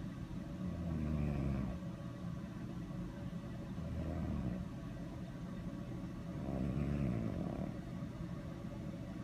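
A sleeping pet snoring: three low, rasping snores about three seconds apart.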